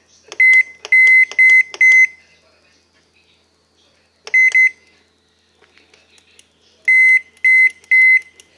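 Microwave oven control panel beeping as its keys are pressed: short single-pitched high beeps, each with a light click, in a run of four, then two, then three.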